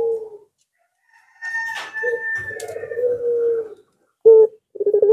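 A puter pelung (Barbary dove) cooing in drawn-out, steady coos. One coo trails off at the start, another runs from about two seconds in, a short one comes about four seconds in, and a long coo begins near the end. A higher, thinner call overlaps briefly about a second and a half in.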